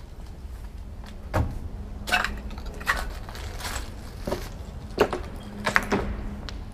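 Footsteps, each a sharp knock or scrape, landing about once every three-quarters of a second over a faint steady hum.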